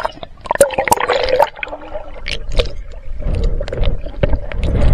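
Water splashing and gurgling right against a waterproof camera as it is dipped below the surface, with many sharp clicks and knocks. The sound turns to a low, muffled rumble once the camera is underwater.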